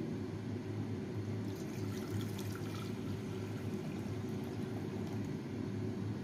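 Water poured in a stream into an empty stainless steel pot, splashing on the metal bottom as it fills.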